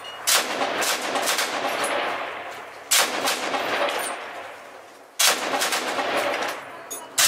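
Bursts of automatic gunfire, three short volleys of rapid shots about two and a half seconds apart and another starting at the very end. Each burst is followed by a long, fading echo.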